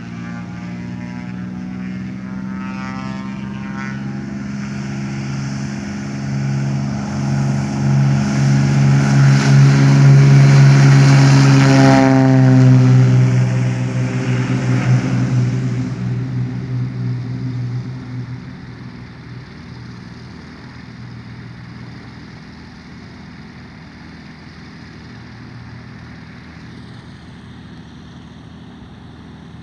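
Cessna 210 Turbo Centurion's turbocharged six-cylinder engine and propeller at high power on its take-off run, growing louder as it approaches. It passes about twelve seconds in with a drop in pitch, then fades to a quieter drone as it moves away.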